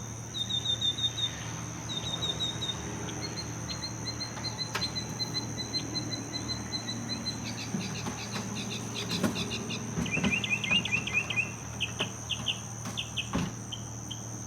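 Birdsong that the listener takes for a northern mockingbird: phrase after phrase of quickly repeated notes, changing every few seconds, including a long fast trill and then a lower run of notes. A steady high insect drone, like a cricket, runs underneath, and there is a single sharp click near the end.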